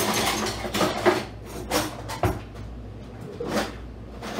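Irregular clattering and knocking of kitchen things being handled at a counter, busiest in the first second, with a sharp knock about halfway through.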